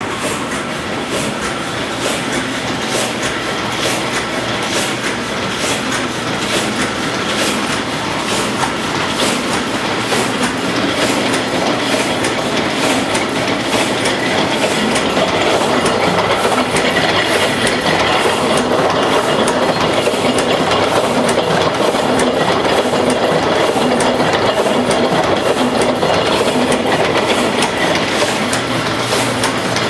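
Heidelberg printing press running: a steady mechanical clatter with a regular click about every half second, growing a little louder about halfway through.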